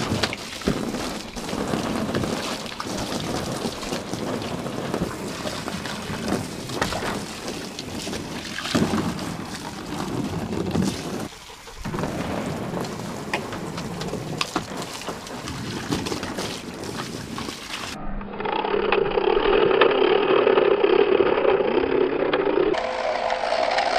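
Water gushing from a hose into a plastic wading pool, with irregular splashes as a dog moves about in the water. About 18 seconds in this gives way to a duller, steadier sound.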